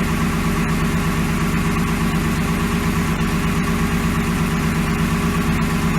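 Ford 5.4 L two-valve Triton V8 idling while warming up after a cold start, with a steady rhythmic knock from piston slap that is quieting as the engine warms. An exhaust leak is also heard near the start of the clip.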